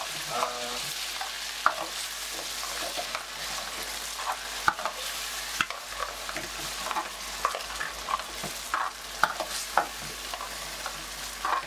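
Metal ladle stirring and scraping chicken, peppers and onion in a stainless steel frying pan while the sauced food sizzles. A steady frying hiss runs under irregular sharp clinks of the ladle against the pan.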